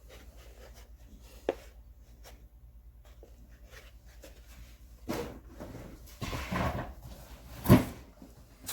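Hand tools and their cases being handled and set down: a light click about a second and a half in, rustling and knocking a little past the middle, and a sharp knock near the end.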